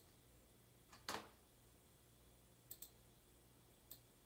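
Near silence: room tone with a faint low hum and a few short, faint clicks, the loudest about a second in.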